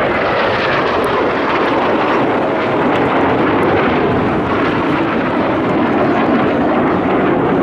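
Jet noise from Blue Impulse Kawasaki T-4 twin-turbofan jet trainers passing in a display. The jet noise is loud and steady, with its pitch sliding slowly downward as the aircraft go by.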